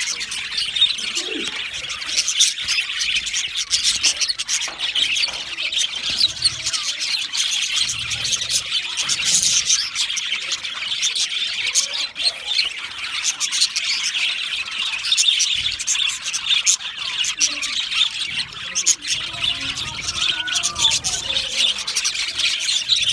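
Budgerigars chattering and chirping, a continuous dense warble of short, high calls from several birds at once.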